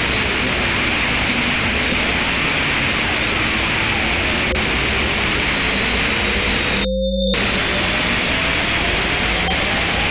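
Synthesized electronic sound: a dense hiss with many pure tones slowly gliding up and down across one another, over a few steady high tones. The hiss cuts out for a moment about seven seconds in while some tones carry on.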